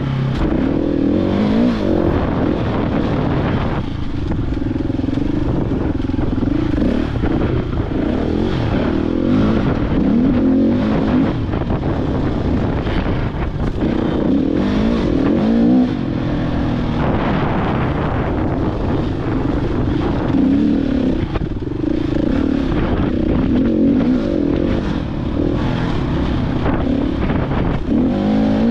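Husqvarna 701's single-cylinder four-stroke engine being ridden hard off-road, its pitch rising and falling again and again with throttle and gear changes.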